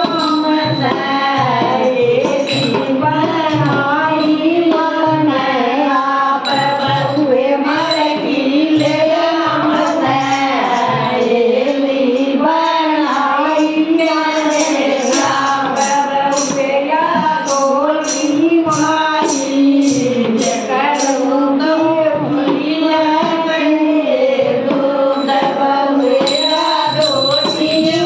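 Haryanvi bhajan music: a wavering melody over a steady drum beat with jingling percussion, the jingles brightest in the middle.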